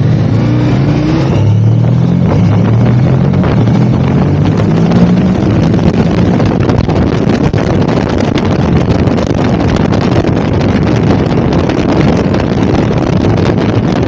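KTM 1290 Super Adventure's V-twin engine pulling hard, its pitch rising, dropping at a gear change about a second in, then rising again. After about four seconds, heavy wind noise on the microphone at road speed covers most of the engine.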